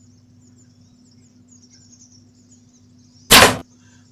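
Faint high chirping over a low steady hum, then a single sharp, loud crack about three seconds in: the bow firing at the game.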